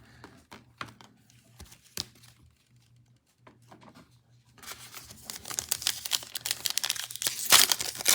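A few light clicks of cards being handled, then a trading-card pack's plastic wrapper being torn open and crinkled. The crinkling starts about halfway through and is loudest near the end.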